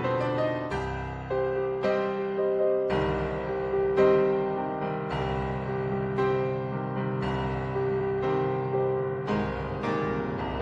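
Background piano music: chords and notes struck about once a second, each ringing and fading.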